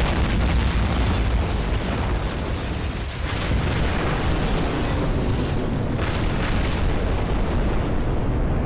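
Loud, sustained rumbling boom, an explosion-like sound effect that starts abruptly and keeps going, its deep low end strongest.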